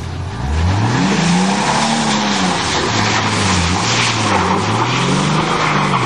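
Car engine revving hard with its wheels spinning in mud, the engine pitch climbing and falling again and again over a loud rush of spinning tyres and spraying mud.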